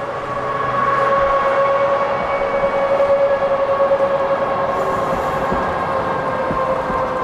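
Passenger coaches of a train rolling past, with a steady high-pitched whine with overtones sounding over the rumble and slowly sinking in pitch. A few faint knocks come from the wheels late on.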